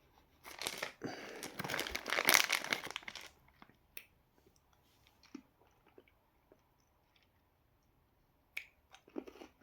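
Chocolate wrapper crinkling and tearing for about three seconds, then faint scattered clicks of chewing.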